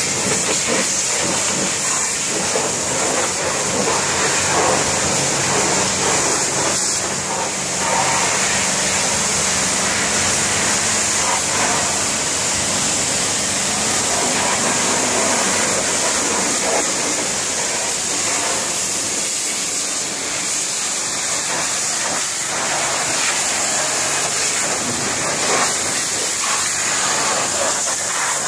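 Hot-water pressure washer jet spraying onto a backhoe loader's steel arm and frame: a steady, loud hiss of spray with splashing. A low engine hum runs under it for the first half.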